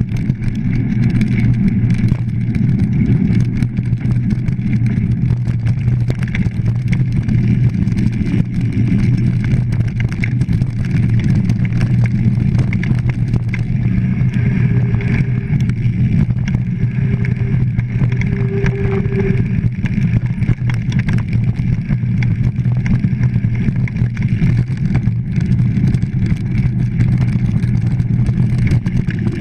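Mountain bike riding fast over a dirt forest trail, heard through a bike-mounted GoPro: a steady, loud low rumble of wind and trail vibration.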